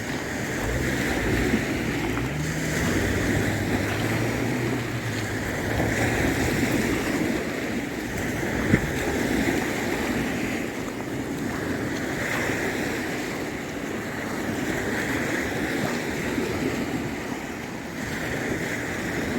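Small waves washing onto the shore, swelling and easing every few seconds, with wind buffeting the microphone. A low steady hum sounds in the first few seconds, and a single sharp click comes about halfway through.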